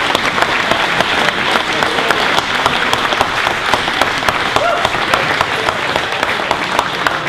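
Crowd applauding steadily, many hands clapping at once, with a few voices mixed in.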